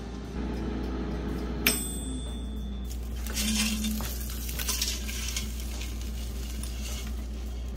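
Air fryer basket handled: a sharp metallic clink that rings on for about a second, then cooked chicken pieces sliding and tumbling out of the nonstick basket onto a paper towel, over a steady low hum.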